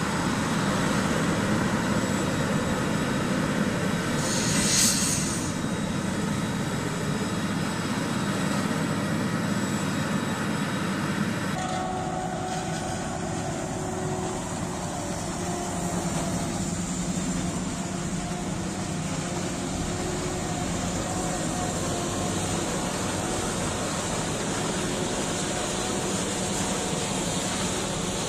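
Heavy diesel farm machinery running steadily at work on a maize silage harvest, with a short hiss about five seconds in. The engine sound changes abruptly a little before halfway, as to a different machine.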